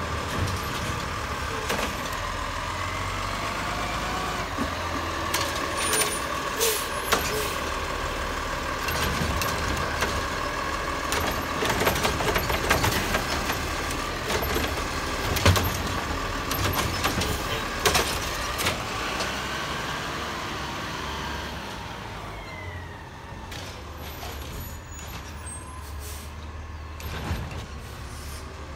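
Peterbilt garbage truck with a Heil automated side-loader body, its engine revved to drive the hydraulic pump, which gives a steady whine while the arm lifts a cart and dumps it into the hopper. Several sharp bangs come as the cart knocks against the hopper. About 21 seconds in the whine stops and the truck pulls away more quietly.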